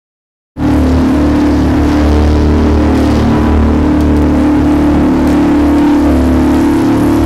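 Boat engine running steadily at a constant pitch, loud and close. It cuts in abruptly about half a second in, after total silence.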